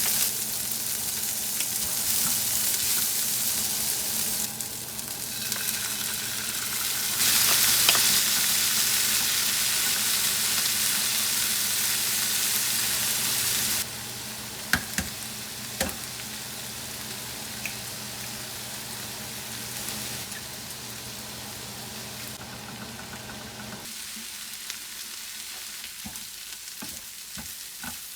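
Food sizzling in a hot frying pan, louder in the first half and quieter after about halfway, with a few sharp clicks of a utensil against the pan. A low steady hum runs underneath and stops near the end.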